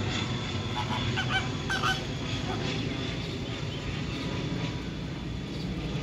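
A flock of flamingos calling together in a dense, steady low chatter, with a few higher calls standing out about one to two seconds in.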